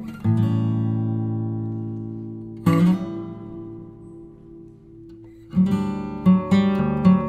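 Background music of strummed acoustic guitar: two ringing chords that die away slowly, then quicker strumming from about five and a half seconds in.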